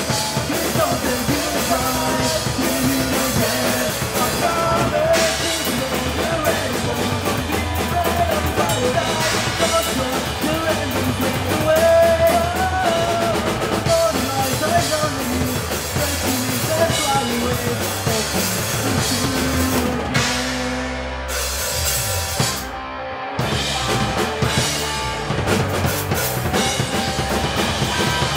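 Live rock band playing: drum kit, electric guitar and bass guitar, with a sung vocal line over them. About twenty seconds in the band drops back to a brief break, then the drums come back in.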